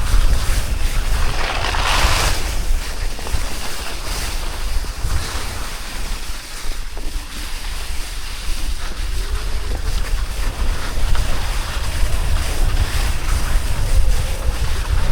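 Wind buffeting the microphone during a fast downhill run on snow, with ski or board edges hissing and scraping over the snow; one louder scrape about two seconds in.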